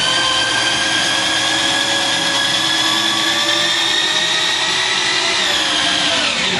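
Corded electric drill with a 3/4-inch socket spinning the hex drive of a 5,000-pound Bulldog jack, lifting a snowmobile on its lift. A steady motor whine under load that creeps slightly up in pitch, then winds down and stops near the end.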